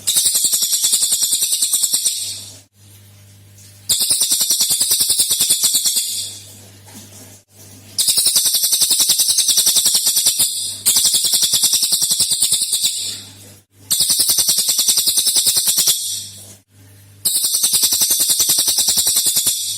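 Cililin songbird giving its rapid 'tembakan' (shot) call: six bursts of about two seconds each, very fast even high-pitched trilling, separated by short pauses.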